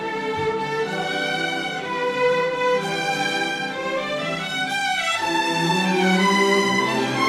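Orchestral background music, with strings holding long notes.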